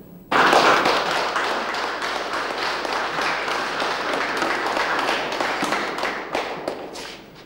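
Audience applauding, starting suddenly and thinning to a few scattered claps near the end.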